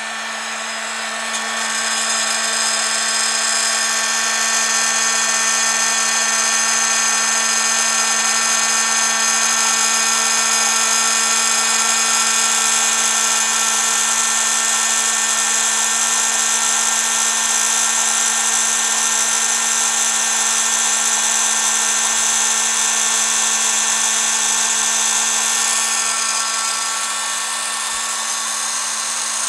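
Heat gun running steadily, blowing hot air onto a circuit board to melt solder paste for reflow soldering: a steady motor hum under loud rushing air. It gets a little louder about a second and a half in and eases off slightly near the end.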